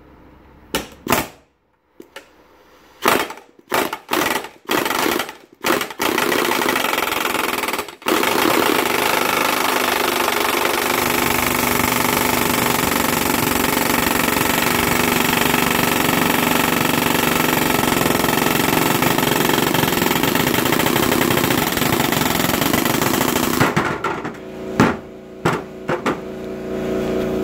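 Pneumatic impact wrench (air gun) hammering on the nut of a rusted pulley: a few short bursts, then a long continuous run of about eighteen seconds, then a few more short bursts near the end. The hammering is driving the rust-seized pulley off the engine shaft.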